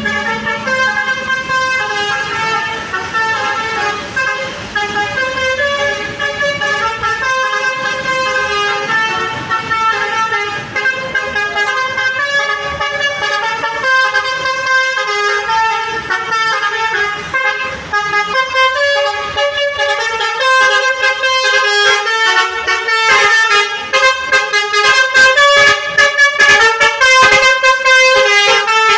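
Basuri V3 telolet horn, a multi-trumpet bus air horn, playing a tune of held notes that step from pitch to pitch. From about two-thirds of the way in it gets louder, and near the end the notes come in quick choppy repeats.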